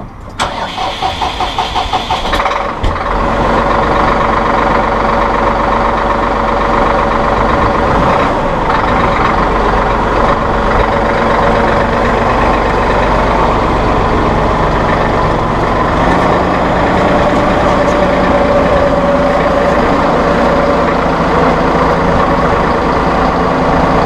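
Massey Ferguson 4610M tractor's diesel engine cranked over by the starter for about two seconds, then catching and running steadily. The engine speed picks up a little about two-thirds of the way through as the tractor moves.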